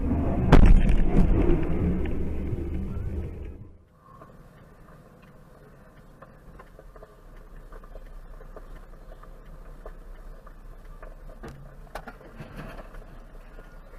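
Loud vehicle noise with a sharp bang about half a second in, cutting off suddenly after about four seconds. Then comes the quiet, steady low rumble of a vehicle driving in traffic, heard from inside the cab, with a few faint clicks near the end.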